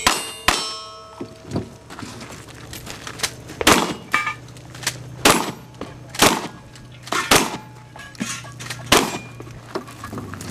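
A string of about a dozen gunshots from a cowboy action shooter's long gun, fired roughly once a second at an uneven pace, some followed by the brief ring of steel targets being hit.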